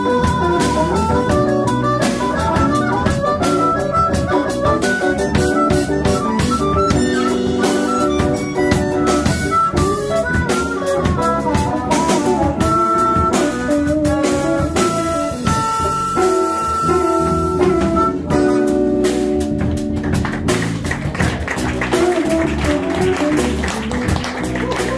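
Live jazz band playing: hollow-body electric guitar, electric bass and drum kit, with a melodic lead line of single notes that holds one long note past the middle and stops about three-quarters of the way through.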